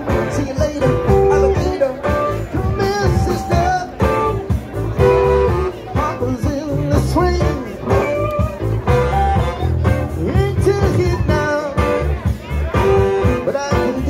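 Live band playing with electric guitars and drums, a steady driving beat.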